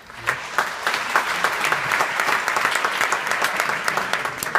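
Audience applauding: dense clapping that comes in within the first half second, holds steady, and dies away near the end.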